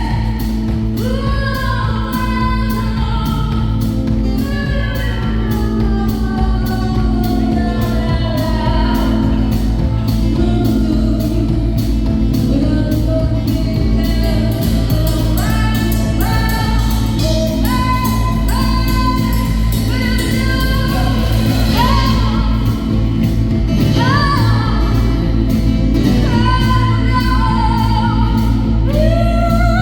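Live band music with a singer: a sung melody over a steady bass and a regular beat.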